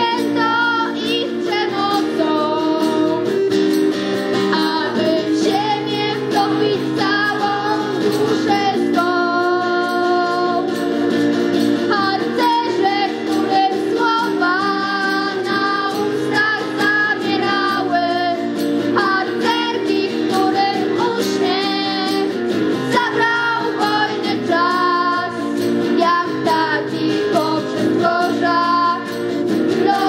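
A girl singing a song with acoustic guitar accompaniment, amplified through a microphone.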